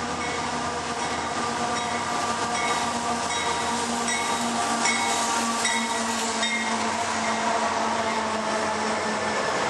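CSX freight train led by two GE diesel locomotives passing close by, engines running with a steady drone that grows slightly louder as the lead unit reaches the microphone. Short high-pitched tones recur through the first half.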